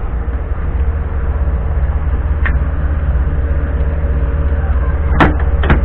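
Steady low rumble of a running vehicle, with a steady hum above it. A faint click comes about halfway through, and two sharp clicks come close together near the end.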